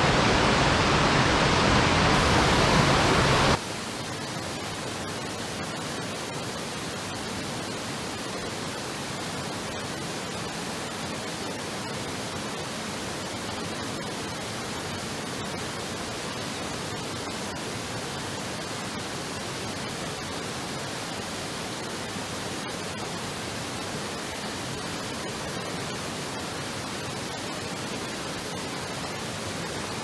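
Small waterfall rushing into a mountain-stream pool, then a sudden drop about three and a half seconds in to a quieter, steady, even hiss of flowing stream water.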